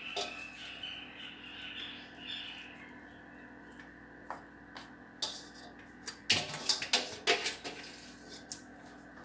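Hands picking shredded vegetables out of a stainless-steel bowl and scattering them over a pie in a metal baking tray: soft rustling with scattered light taps and clinks against the metal, coming thicker in the second half, over a faint steady hum.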